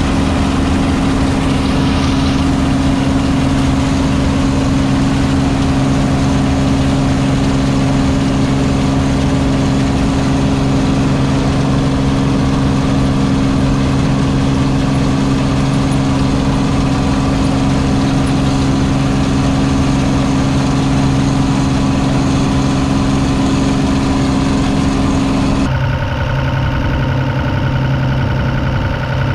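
Claas Dominator 85 combine harvester running steadily, a loud even drone with a strong low hum. About 26 seconds in the sound changes abruptly and turns duller.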